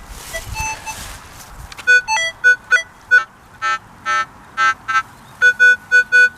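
Metal detector giving electronic target tones as the coil sweeps the ground: short beeps of varying pitch, then from about two-thirds of the way in a fast run of identical beeps, about five a second. This is a strong, repeatable signal, which the detectorist calls banging.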